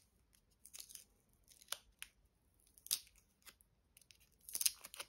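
Paper label being peeled and torn off a soft pastel stick by hand: a series of short, crisp paper tears and rustles, the loudest cluster near the end.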